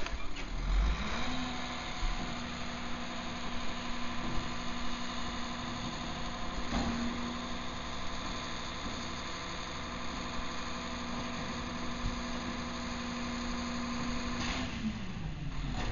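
Crane Carrier Company integrated rear loader garbage truck's engine running. It speeds up about a second in, holds a steady higher note, and drops back near the end.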